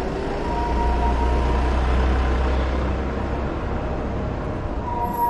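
City street traffic: a steady wash of road noise, with the deep rumble of a heavy vehicle going by that swells about a second in and eases off after three seconds.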